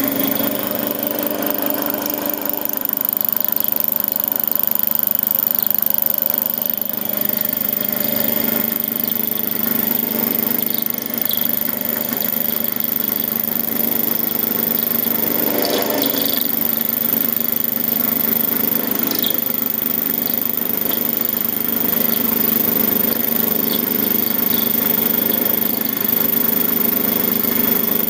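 D180-300V benchtop lathe running steadily, an end mill held in its chuck milling an aluminium round bar on a milling attachment. A few brief higher-pitched sounds stand out from the cut now and then.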